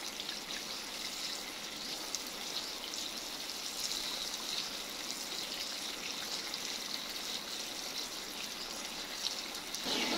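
Tap water running steadily and splashing onto a concrete floor as hands rub and rinse something under the stream.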